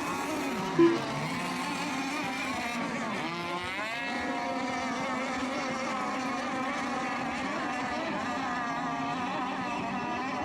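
Several radio-controlled racing boats' engines running at high revs, their whines overlapping and rising and falling as the boats go round, with one clear rising sweep a few seconds in. A short loud beep sounds about a second in.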